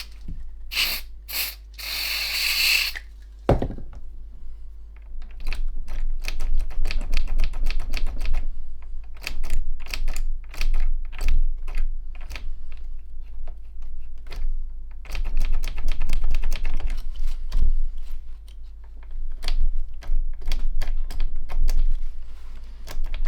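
Long runs of rapid mechanical clicking as the receiver's switches and headphone jack contacts are worked back and forth to clean a bad connection, after a few short hissing bursts near the start.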